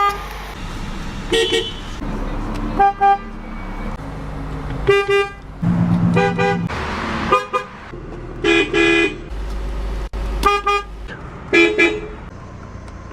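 Nissan car horns sounding in a series of about a dozen short honks, some in quick doubles, each a brief pitched blast.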